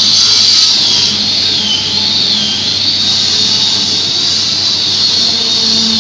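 Sliding table panel saw running with a steady high whine that wavers in pitch for a moment, over a low hum.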